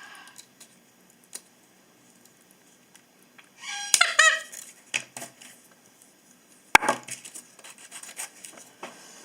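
Patagonian conure giving a quick run of short, harsh squawks about four seconds in while being handled, with light handling ticks around it and one sharp click a little later.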